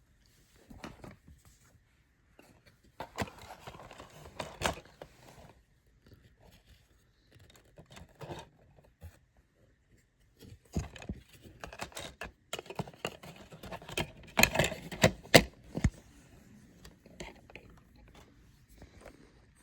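DVD box set and its plastic cases being handled: irregular scraping and rustling with sharp plastic clicks, the loudest clicks coming in a cluster in the second half.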